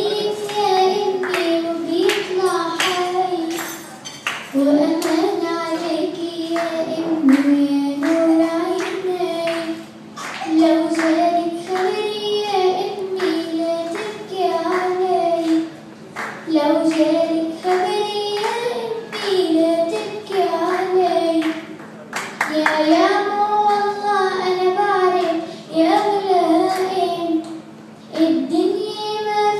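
A young girl singing a revolutionary song in Arabic, unaccompanied, in sung phrases of a few seconds each with short breaks between them.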